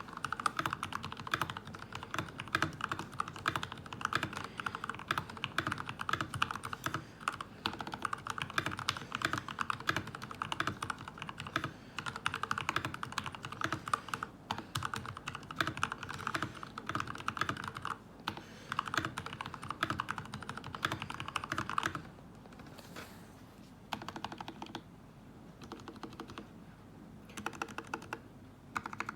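Fast typing on a GK61 60% mechanical keyboard with Krytox-lubed Gateron Yellow linear switches and Shirokawa keycaps: a dense, continuous run of keystrokes. About 22 seconds in the keystrokes thin out and get quieter, then pick up again briefly near the end.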